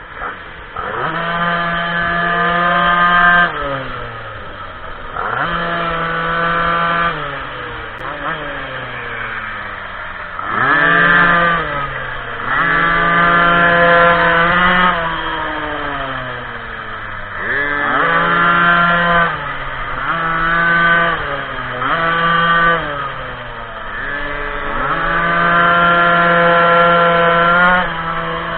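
Small two-stroke engine of an M4 minimoto pocket bike, heard on board, revving up to a steady high pitch and holding it, then falling in pitch as it slows. This happens about eight times as the bike accelerates out of corners and backs off into the next.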